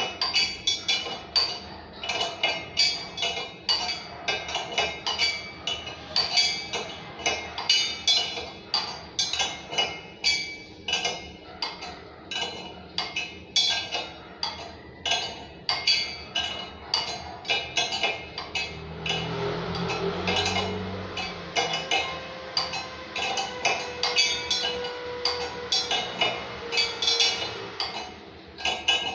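Rapid, repeated metallic clicking, a few clicks a second, as the fixing of a wall-hung ceramic lavatory is tightened with a hand tool. A low steady hum joins in briefly past the middle.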